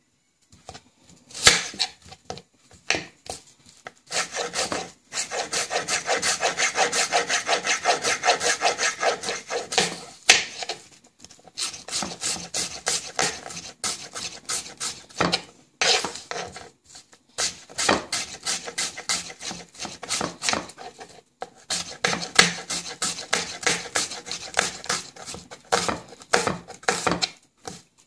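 Kitchen knife slicing an onion on a wooden chopping board: quick, repeated strokes, several a second, with the blade knocking on the board. They come in runs with short pauses between them.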